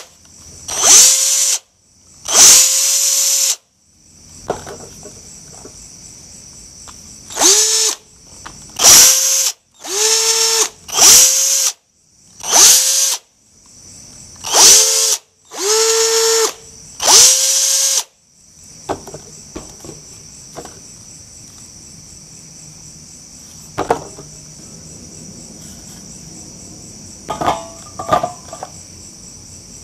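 Cordless drill running on a homemade 24-volt battery pack, triggered in about ten short free-spinning bursts, each spinning up with a rising whine that then holds. After about 18 seconds the drill stops, leaving the steady high chirring of crickets and a few handling clicks near the end.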